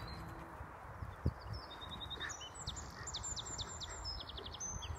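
Wren singing: a rapid run of high notes and trills starting about two seconds in. A single soft knock comes about a second in.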